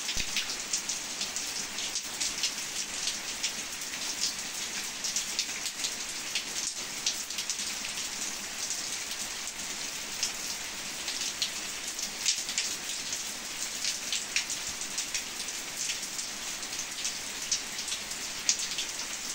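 Rain falling steadily in a continuous hiss, with a dense patter of individual drops ticking on surfaces close by.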